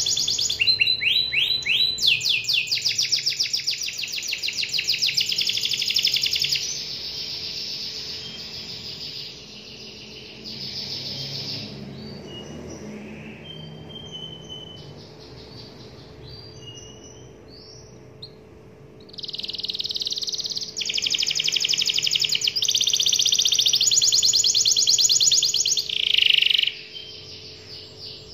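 Domestic canary singing long, fast rolling trills of rapidly repeated high notes. The trills are loud at first, give way to softer, scattered notes through the middle, then come back loud in the last third before stopping shortly before the end.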